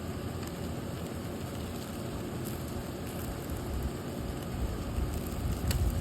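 Sliders cooking over a hot grill fire: a steady hiss and crackle, with a gusty low rumble of wind on the microphone that picks up in the second half and a few sharp clicks near the end.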